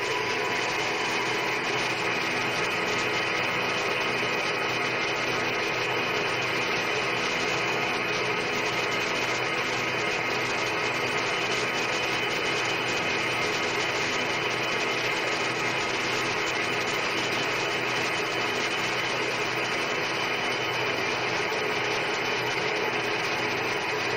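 Centre lathe running at a steady speed, its chuck spinning a steel workpiece held on the tailstock centre: an even mechanical whir with gear noise.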